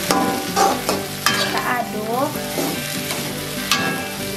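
Metal spatula stirring and scraping mustard greens around an aluminium wok over the sizzle of frying, with several sharp scrapes and knocks of the spatula against the pan.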